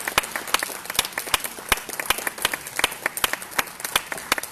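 Audience applauding, a steady run of many distinct hand claps.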